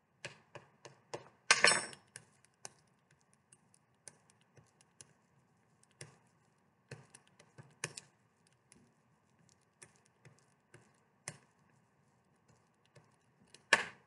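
A metal spoon burnishing the back of a sheet of paper on an inked printing plate to hand-transfer a leaf print. It makes irregular light clicks and taps with some scraping, loudest about a second and a half in and again just before the end.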